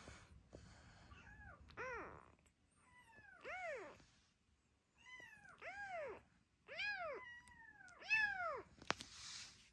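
Young kittens mewing: about five high, arching mews, each rising and then falling in pitch, about a second apart.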